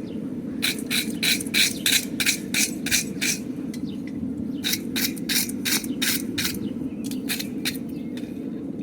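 Quick, rhythmic scraping strokes of a hand tool on steel, about three a second, in runs of several strokes with short pauses between them, over a steady low hum.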